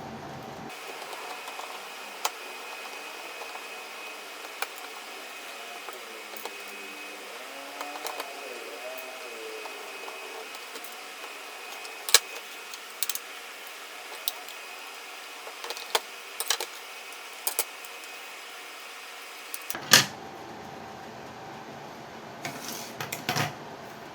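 Scattered sharp plastic clicks and snaps as the case of an MXQ Pro TV box is handled and pried open, over a steady hiss; the loudest snap comes about 20 seconds in, with a quick cluster of clicks near the end.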